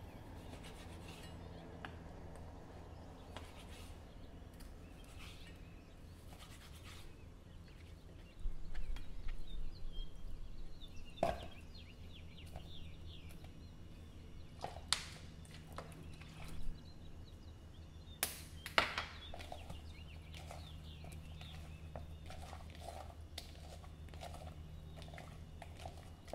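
Food-prep handling sounds over a steady low hum. First come light cuts of a knife through raw pork belly on a plastic cutting board. In the middle there is a louder stretch of handling and several sharp knocks as the pieces go into a plastic bowl. Near the end, soft repeated wet taps come from a hand working the meat in the bowl.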